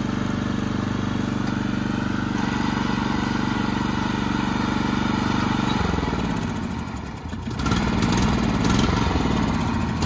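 Troy-Bilt riding lawn mower engine running at a steady pitch, then its speed wavers and the sound dips briefly about six to seven seconds in before picking up again.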